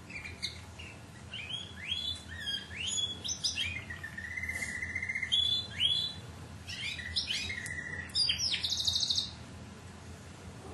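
Domestic canary singing: a string of quick rising chirps and trills, with a steady rolling trill about four seconds in and a fast, higher trill near the end before the song breaks off.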